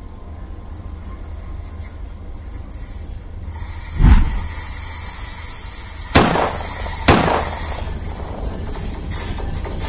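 GE ES44ACi diesel-electric locomotive approaching: a steady low rumble, joined about a third of the way in by a steady high hiss. Three sharp knocks come over it, the loudest about four seconds in.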